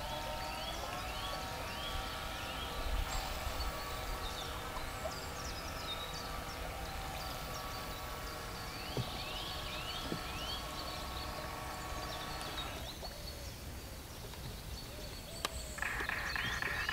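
Radio-controlled model S-boat putting out a steady whining tone with several pitches. It rises briefly at the start, holds flat, and cuts off about 13 seconds in; near the end a new, higher steady tone starts. Quick bird chirps repeat over it.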